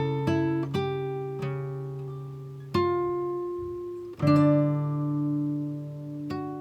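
Background music: acoustic guitar picking slow notes that ring out and fade.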